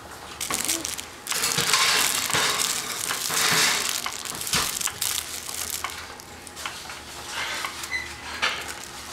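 Crinkly rustling of a baby's soft fabric book as it is grabbed and moved about, loudest in a long stretch early on and then in softer bursts.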